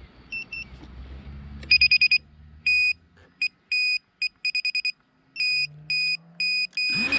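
Electronic buzzer on an FPV quadcopter sitting on the ground, beeping at one steady high pitch in an irregular pattern of short and longer beeps. The motors start spinning up right at the end.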